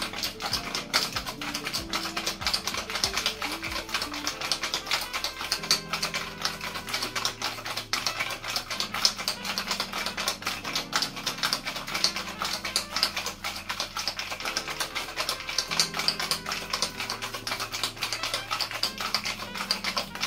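Ice rattling hard inside a steel cocktail shaker being shaken continuously, a fast steady rattle: a cream-and-liqueur cocktail being shaken with ice. Background music with a low melody plays along.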